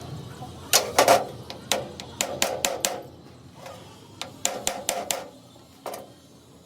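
A hammer striking metal parts of a road roller's differential: an irregular run of sharp blows, each with a short metallic ring, coming in two bunches with a brief pause between.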